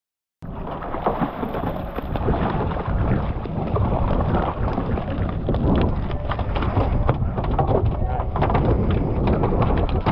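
Freshly gaffed dorado (mahi-mahi) thrashing on a boat deck: a dense, irregular run of tail slaps and thumps.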